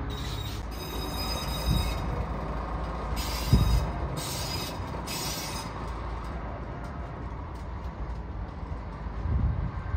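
Yellow rail track-maintenance motor car and wagons shunting slowly, steel wheels squealing against the rails a few times, over a low rumble. Three low clunks, the loudest about three and a half seconds in.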